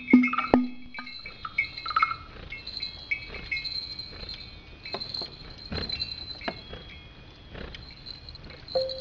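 Theatre soundscape: a clicking wood-block percussion pattern over a low held tone stops about a second in, followed by sparse short high tones and scattered soft knocks.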